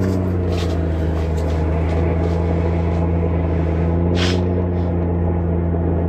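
Steady low motor hum whose pitch bends slowly up and down twice, with a few light clicks.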